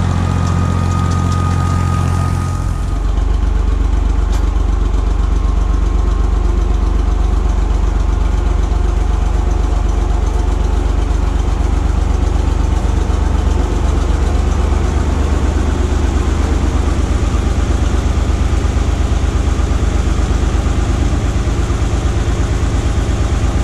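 Allis Chalmers 5050 tractor's diesel engine running with a Woods Brushbull rotary cutter mowing. About three seconds in, it changes to the engine running at low speed, with an even, regular pulse.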